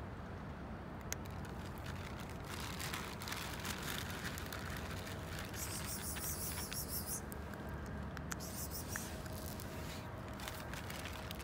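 A cat chewing dry kibble, many small crunches and clicks, over a steady low background hum. A high hiss comes twice near the middle.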